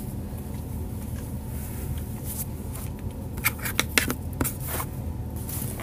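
Denim jeans rustling as they are handled and laid flat on a table, with a quick run of sharp rustles and taps between about three and a half and five seconds in. A steady low hum runs underneath.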